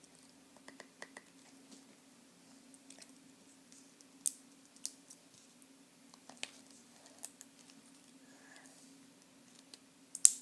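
Scattered sharp clicks and taps of small cardboard and plastic packaging being handled and opened, about half a dozen louder ones, the loudest near the end, over a steady low hum.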